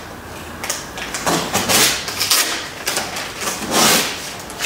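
Adhesive tape being peeled off a car door's window glass: several short noisy rips, the loudest near the end.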